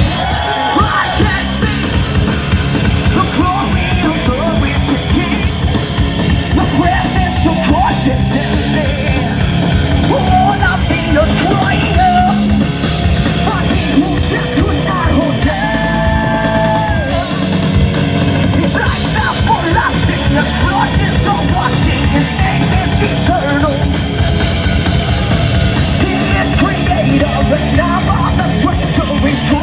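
Heavy rock band playing live and loud on electric guitar, bass guitar and drum kit, with the singer yelling and singing into the microphone. A long held note sounds about halfway through.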